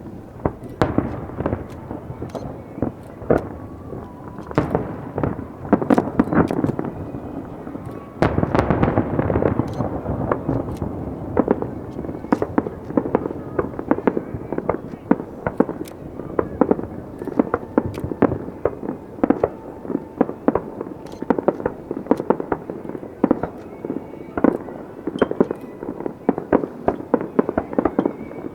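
Fireworks display: a dense barrage of shell bursts and crackling, many sharp bangs a second over a continuous rumble. A louder surge comes about eight seconds in.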